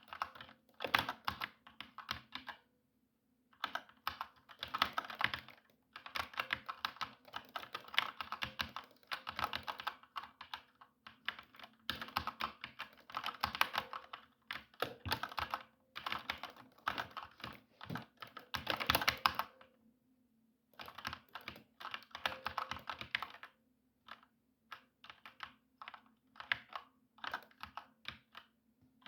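Typing on a computer keyboard, in fast runs of keystrokes broken by short pauses, with slower, separate key presses near the end.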